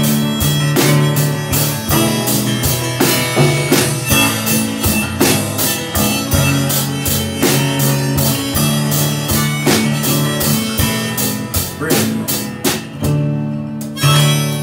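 Harmonica played over strummed acoustic guitar and a drum kit keeping a steady beat, an instrumental break in a blues-tinged song. The drums drop out for a moment near the end.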